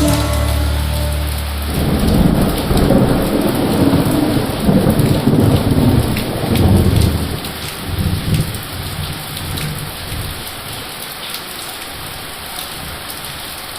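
Steady rain with a long rolling rumble of thunder that swells about two seconds in and dies away after about eight seconds, leaving the rain alone and gradually quieter.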